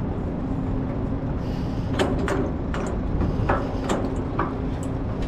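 Footsteps going down a metal gangway, a clank at each step about every half second from about two seconds in, over a steady low hum.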